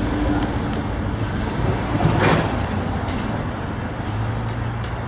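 Steady road traffic noise with a low engine hum, and one vehicle swishing past about two seconds in.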